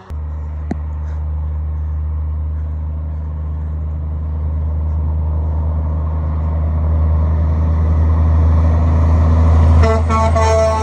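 Low rumble of a large truck building steadily louder as it approaches, then its horn sounding for about a second near the end, the pitch dropping slightly as it passes.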